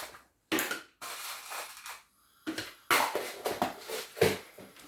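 Small sewing-machine accessories being handled and rummaged through: a run of irregular rustles, clicks and clatters.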